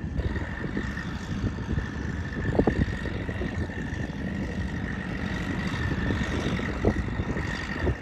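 Motor vehicle engine running steadily under a continuous high whine, with two brief louder sounds, about two and a half and seven seconds in.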